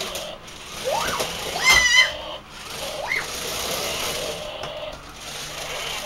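Toy remote-control car's small electric motor whirring, with several short revs that rise and fall in pitch; the loudest and longest comes a little under two seconds in.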